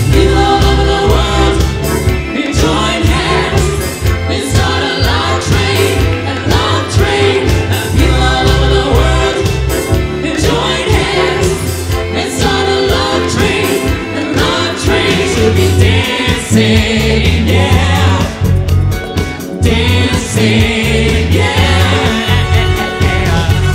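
Upbeat soul music with group singing over a steady bass and drum beat.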